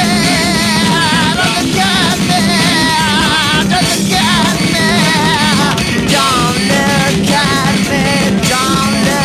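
Rock music: a full band playing loud and steady, with a lead line wavering up and down in pitch above it.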